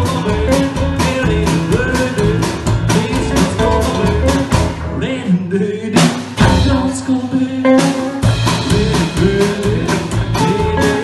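Live rockabilly band playing with a singer: electric and acoustic guitars, upright double bass and drum kit. About five seconds in the drums drop out, a single accented hit lands near six seconds, and the full band comes back in about two seconds later.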